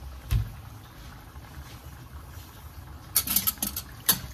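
Kitchen handling sounds: one heavy knock about a third of a second in, then a quick flurry of sharp clicks and clinks near the end, over a steady low hum.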